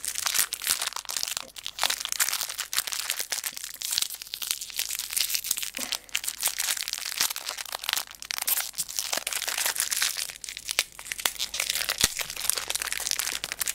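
Small clear plastic bag crinkling and crackling as it is handled and unwrapped close to the microphone.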